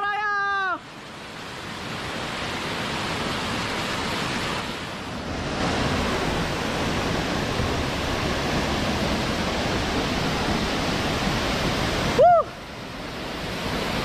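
Steady rushing of a waterfall. A short pitched call ends less than a second in, and a brief rising call sounds about twelve seconds in, after which the water sound drops and swells back.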